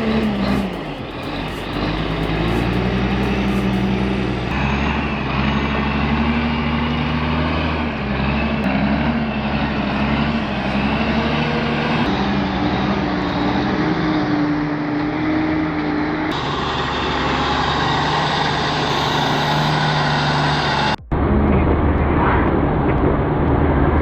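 Heavy truck's diesel engine labouring under load, its pitch wandering up and down. The sound changes abruptly several times, with a brief dropout about 21 seconds in.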